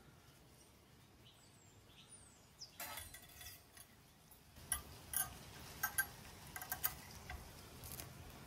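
Stainless-steel wire fish grilling basket being closed over a whole fish. Starting about three seconds in, the wire lid clinks and rattles, followed by a run of sharp metallic clicks as the basket is clamped shut.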